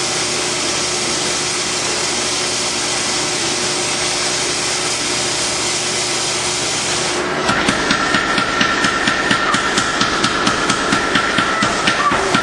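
Forge running with a steady hiss. About seven seconds in, a rapid, evenly paced run of hammer blows on hot steel begins, about three a second.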